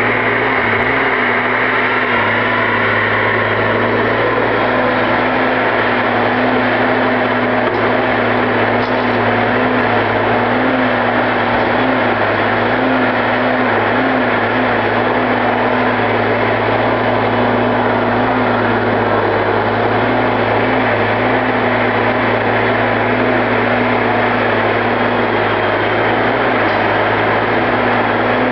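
Diesel engine of a Prentice knuckleboom log loader running steadily as the machine works, a constant deep hum with a dense hiss over it.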